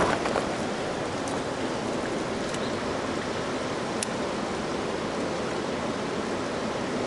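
Steady rush of flowing river water, with a few faint ticks.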